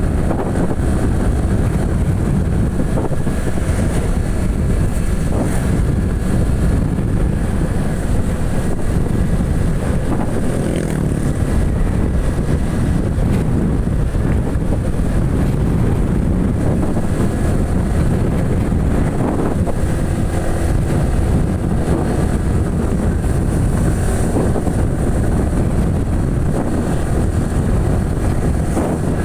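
Yamaha WR155's single-cylinder engine running steadily while the motorcycle is ridden, with wind buffeting the microphone.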